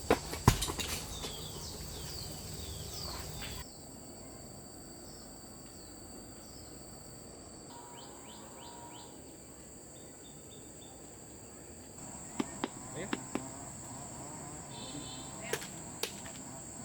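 Steady high-pitched drone of insects, cicadas or crickets, with short chirps and a few sharp knocks and snaps: a loud one about half a second in and a cluster later on.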